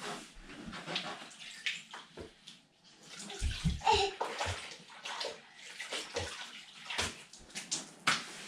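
Water sloshing and splashing in a small plastic bucket as hands dip into it and wring out a wet rag, in irregular splashes and drips with a few soft knocks against the bucket.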